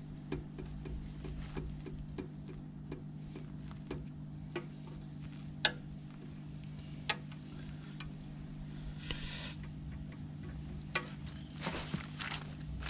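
Small clicks and taps of tools and metal fittings being handled while the indicator bracket nuts are worked on, irregular and a few per second, with a few sharper knocks. A short rasping scrape comes about nine seconds in, over a steady low hum.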